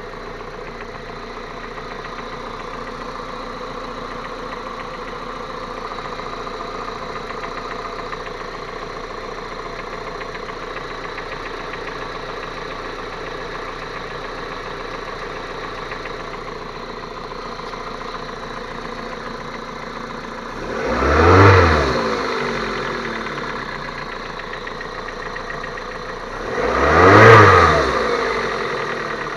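Geely Emgrand EC7's 1.8-litre four-cylinder petrol engine idling steadily. It is blipped twice, once about two-thirds of the way through and again near the end, each rev rising and falling back within about two seconds. This is an engine with a knock that the owner is demonstrating.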